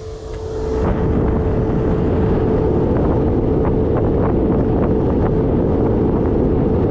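Air rushing through a freshly cleaned dryer vent line, with a steady machine hum under it. It swells over the first second, then holds loud and steady, with wind buffeting the microphone.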